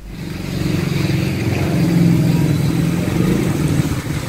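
Street traffic on a rain-wet road: a motor vehicle's engine runs close by, getting louder over the first second, over a steady hiss.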